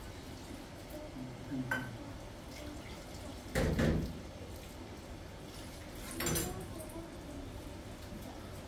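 Three short clatters of household objects over faint room noise, about two seconds apart; the middle one is the loudest and longest.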